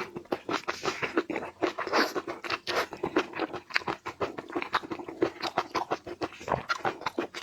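Close-miked crunching and chewing of seafood: a dense, irregular run of crackly bites and clicks.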